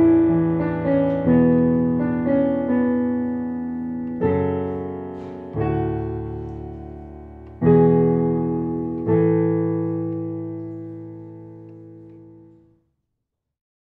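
Piano playing a slow passage of struck chords. The last chord, struck about nine seconds in, rings on and fades away near the end.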